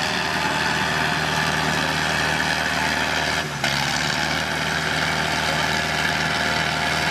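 Diesel tractor engines running steadily, two tractors chained back to back for a tractor tug-of-war, with a brief dip in loudness about halfway through.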